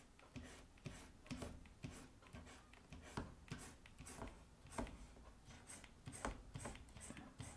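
Stylus scratching across a drawing tablet in quick, short strokes, about two or three a second, as a tyre's edge is shaded in with a digital brush. The strokes are faint.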